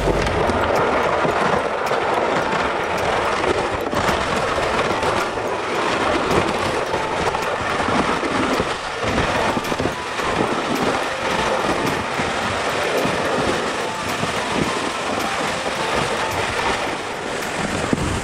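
A loaded plastic sled dragged over icy pavement and then packed snow, making a continuous rough scraping that the camera picks up close, since it rides on the sled.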